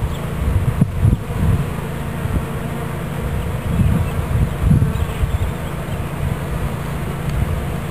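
A swarm of honeybees buzzing steadily, a loud, continuous hum, with a few brief low rumbles mixed in.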